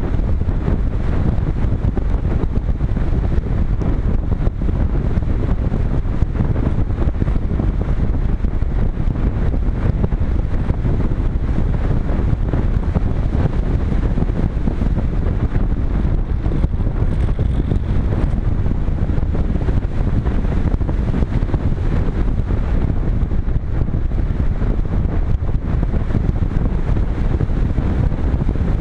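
Steady rushing wind noise from airflow buffeting a GoPro Hero 3 camera mounted on a Multiplex Cularis RC glider in flight, heaviest in the low end.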